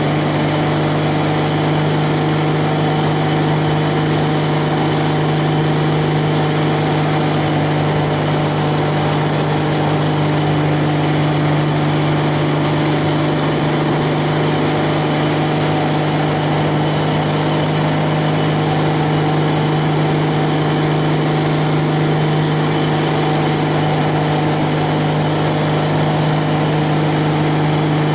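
Tow boat's engine running at a constant speed while pulling a water skier, an unchanging drone with a steady hum, under a steady rushing hiss from the wake and wind.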